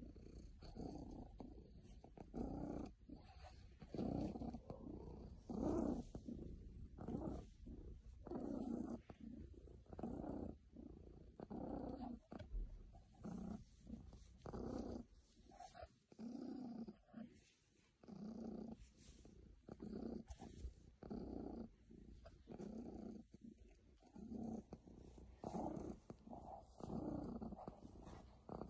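Domestic cat purring close to the microphone, a low rumble that swells and fades in a steady rhythm with each breath: a contented, happy cat.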